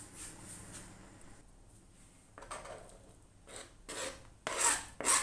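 Diced avocado being scraped off a board into a bowl of pasta salad with a utensil: several short rasping strokes, the loudest near the end.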